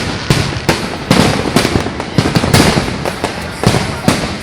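Fireworks going off in a dense, irregular run of sharp bangs, several a second, each ringing out briefly before the next.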